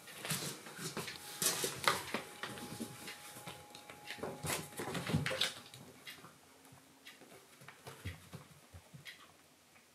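Kittens at rough play: paws and claws scrabbling and thumping against a cardboard box, the floor mat and a sisal cat-tree post, in a busy run of quick knocks and rustles. It thins out to a few faint taps after about six seconds.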